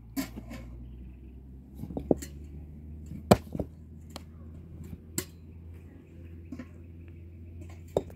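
A handful of sharp knocks at irregular intervals, the loudest about a third of the way through, over a low steady hum.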